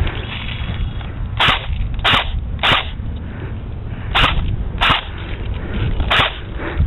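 Airsoft gun firing single shots: six sharp cracks, three in quick succession about half a second apart, then three more spread out over the next two seconds.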